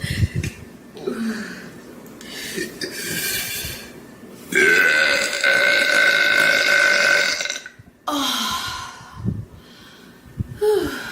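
A pregnant woman burping repeatedly from a bloated stomach. A short deep burp comes at the start, then one long loud belch of about three seconds held at a steady pitch, then shorter burps and breaths.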